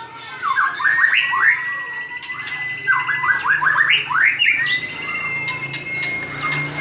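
White-rumped shama (murai batu) singing: runs of quick rising notes alternate with long, level held whistles, and the last whistle drops off at the end.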